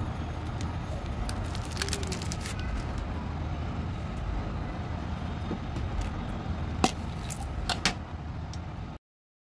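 Steady low background rumble with scattered small clicks and crinkles from hands handling a candy wrapper and candies; two sharper clicks come near the end, and the sound cuts off abruptly just before the end.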